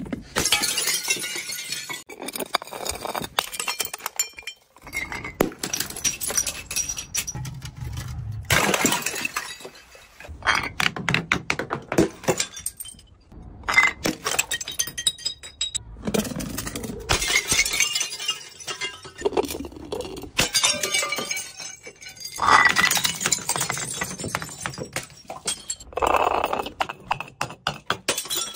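Glass bottles and jars thrown down concrete stairs one after another, clinking as they hit the steps and shattering, a new smash every few seconds.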